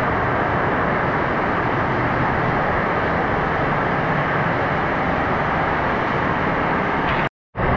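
Steady rush of a waterfall pouring into a hot-spring pool. It drops out suddenly for a split second near the end.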